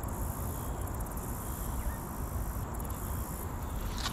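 Insects trilling high-pitched in pulsed bouts of about a second, over a low steady rumble.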